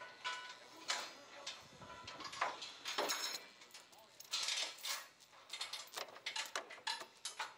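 Steel chain links clinking and rattling in short, irregular bursts as the chain is handled and looped behind a crash cushion's steel diaphragm, with light knocks of metal on metal.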